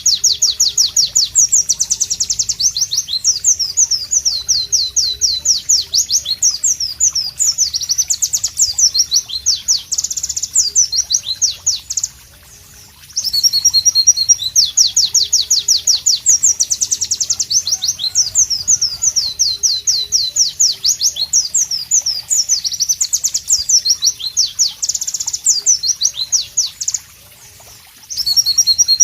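A white-eye (pleci) singing loud, long runs of rapid, high, sweeping chirps. The song breaks off briefly about 12 seconds in and again near the end.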